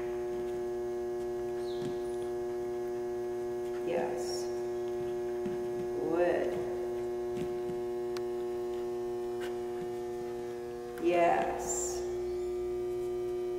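Steady electrical hum with a strong pitched tone and evenly spaced overtones, broken three times by brief voice sounds, the loudest about eleven seconds in.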